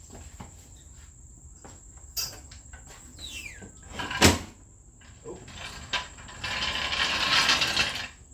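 Hand work on a car wheel being mounted: clicks and knocks of metal parts, a short falling squeak a little past three seconds, a sharp knock a little past four seconds, and a rough rasp lasting about a second and a half near the end, over a faint steady high tone.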